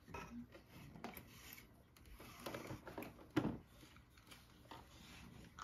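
Faint rustling strokes of a pet grooming brush through a cat's fur, with small knocks as the cat gets up and shifts about on a cluttered wooden tabletop. A sharp tap comes about three and a half seconds in.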